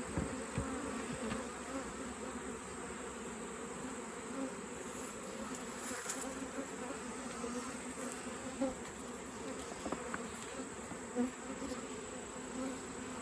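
Honeybees buzzing in a steady, even hum, with a few faint ticks.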